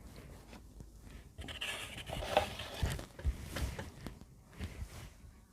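Irregular rustling and rubbing with a few light knocks, busiest in the middle, as things are handled and shifted about.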